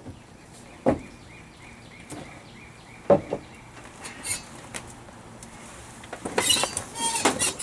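Hand work on a boat console: sharp single knocks about one and three seconds in, scattered light clicks, then a quick run of clinks and rattles near the end, as parts and tools are handled.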